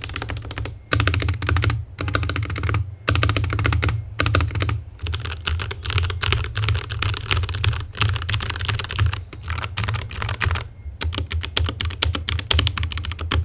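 Fast typing on a Ranked Nova N60 60% mechanical keyboard with PBT double-shot keycaps: a dense run of key clacks, broken by a few brief pauses.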